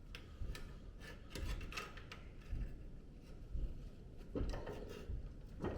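Hand-lever metal shrinker being worked on a steel strip to curve it: a series of irregular clicks and knocks as the jaws grip and gather the metal.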